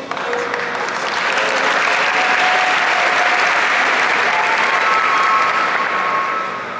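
Audience applauding, building up over the first couple of seconds and dying away near the end.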